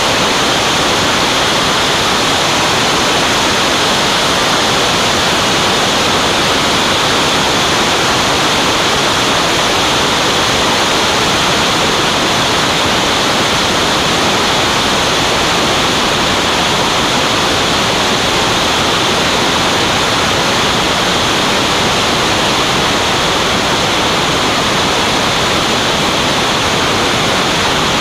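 Steady, loud rush of airflow over a camera mounted on an aircraft's wing in flight, an even hiss-like roar with no changes.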